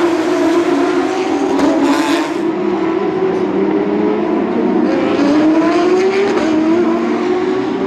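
Porsche 911 GT3 Cup race cars' flat-six engines running hard at high revs. The engine note shifts in pitch as cars accelerate, rising about five seconds in.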